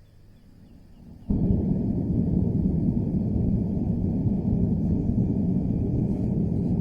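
A loud, steady low rumbling noise that starts suddenly about a second in and cuts off abruptly at the end.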